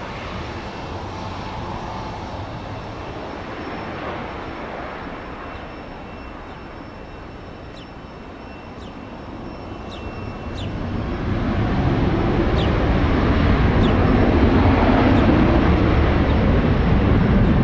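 Jet engines of a departing Boeing 737-800, CFM56 turbofans: a steady roar that grows louder over about two seconds a little past the middle and then holds.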